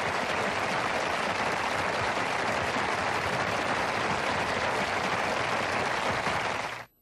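Audience applauding steadily, cutting off abruptly just before the end.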